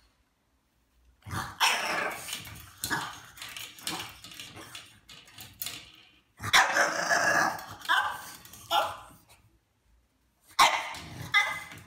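French bulldog barking and yipping in repeated short outbursts, with a longer outburst of about two seconds in the middle and a last short one near the end.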